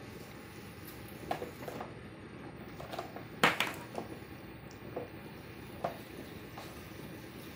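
A monkey's hands splashing and scrubbing in soapy water in a plastic toy sink, with a run of short splashes and knocks against the plastic basin, the loudest about three and a half seconds in, over the steady trickle of the sink's faucet.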